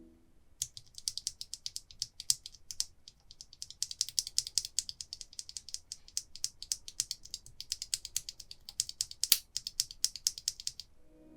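Holy Panda tactile mechanical keyboard switches clicking in quick, irregular runs, sharp and high-pitched with little low end, with a brief pause about three seconds in.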